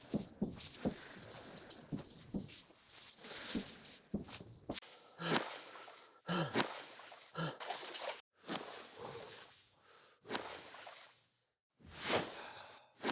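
A run of sound effects. First comes a pen scratching on paper for about five seconds. Then come swimming strokes splashing in water: backstroke, then after a brief silence breaststroke, and after another gap the start of butterfly.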